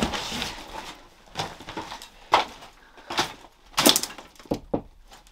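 A handful of scattered knocks and clunks, about five over a few seconds, from hand tools and demolition debris being handled in a stripped-out room.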